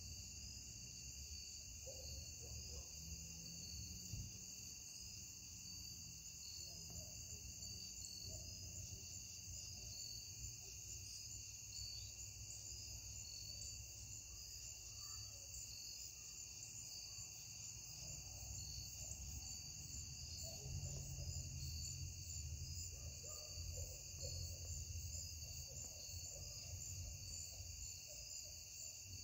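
Crickets chirping steadily in a continuous evening chorus, with a faint low rumble underneath that grows a little louder in the second half.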